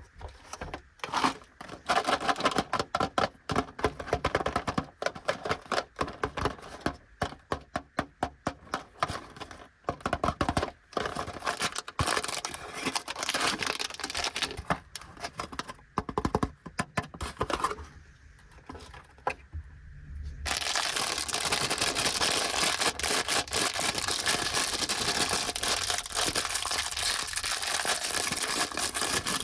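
Plastic snack packaging of an Anpanman biscuit packet crinkling and tearing as it is handled and opened, in irregular bursts at first. After a short lull about two-thirds of the way through, the crinkling becomes continuous.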